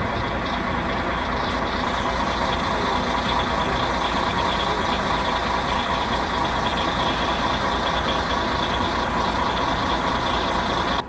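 A heavy vehicle's engine running steadily, a constant drone with a hum, stopping abruptly at the very end.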